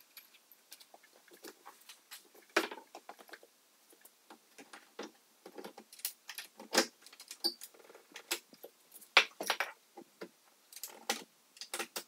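Irregular light clicks, clinks and knocks of an interior door being hung on its metal hinges in the frame, with a sharper knock about two and a half seconds in and another about nine seconds in.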